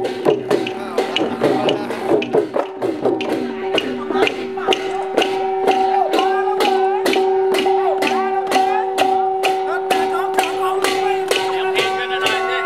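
Thai procession music: drums and cymbals beat a quick, steady rhythm under a held drone and a wavering melody.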